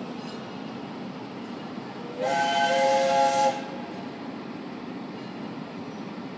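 Lehigh Valley Vulcan 0-6-0 steam locomotive #126 sounding one short chime whistle blast of a little over a second, several notes at once, about two seconds in, over a steady hiss and rumble from the locomotive as it pulls in.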